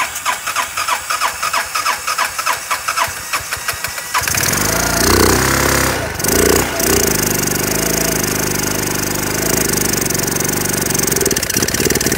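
Honda 250cc scooter engine, running on dish soap in place of engine oil, cranked by the electric starter in a rhythmic churn. It catches about four seconds in, revs up and down a couple of times, then keeps running.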